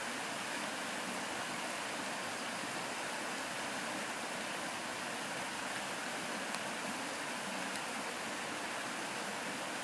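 Steady rush of flowing stream water, an even hiss at a constant level with no calls or other events in it.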